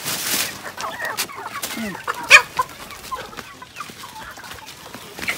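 Free-range chickens clucking, with one loud sharp call about two seconds in.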